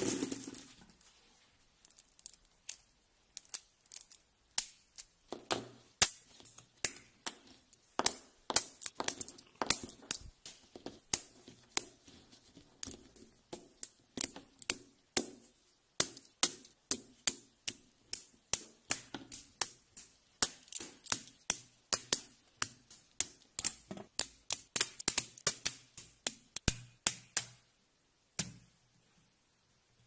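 Magnetic steel rods and balls of a stick-and-ball construction set snapping together with sharp metallic clicks, irregular and one to several a second, as the structure is built up. A short rattle of loose steel balls in a plastic tray fades out at the very start.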